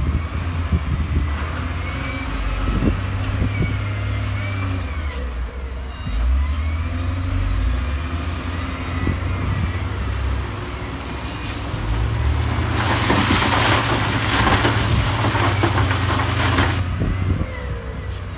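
Heavy diesel construction machinery running with a steady low engine sound and scattered knocks and clanks. About thirteen seconds in, a loud rushing hiss lasts some four seconds and then stops.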